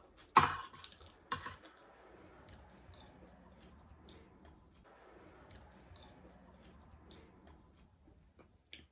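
Close-up eating sounds: spoons scraping and clinking on plates, with two sharp, loud noises about a second apart near the start, then quiet chewing and small clicks of mouths and cutlery.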